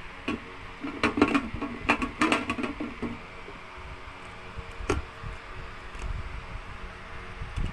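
Plastic lid of an electric sauna steamer being fitted onto its water tank: a run of plastic clicks and knocks over the first three seconds, then a single sharp click about five seconds in as it is pressed home.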